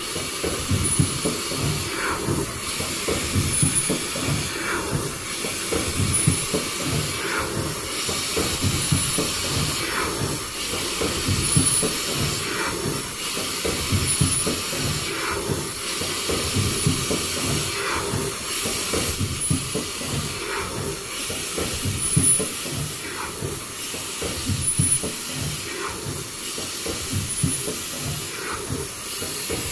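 Automatic folding-mask machine with exhalation-valve welding running: a steady mechanical clatter and hiss of compressed air, with a short high-pitched tone recurring about every two seconds as the machine cycles.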